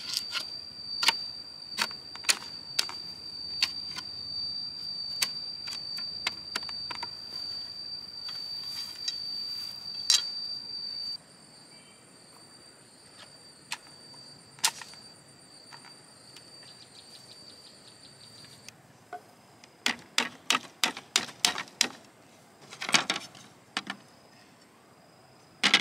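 Sharp knocks at irregular intervals over a steady high-pitched insect drone, which stops abruptly about eleven seconds in. Near the end comes a quick run of knocks, about four a second.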